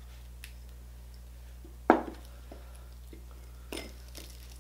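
Crispy pata (deep-fried pork knuckle) being pulled apart by hand: a sharp, loud knock about two seconds in, then a shorter crunching clatter near the end.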